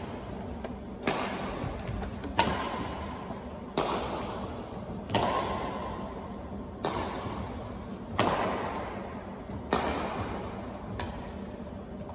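Badminton rally: rackets striking a shuttlecock back and forth, a sharp crack about every one and a half seconds, eight hits in all. Each hit rings on in the echo of a large gymnasium.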